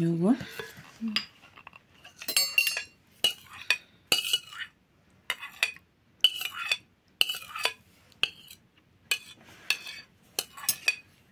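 Metal spoon scraping and clinking against a glass bowl and ceramic plates as fruit salad is spooned out, in irregular strokes about once a second. About two seconds in, one clink rings briefly.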